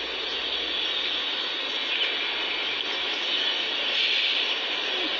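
Steady hiss of outdoor background noise with no distinct events, a little louder about four seconds in.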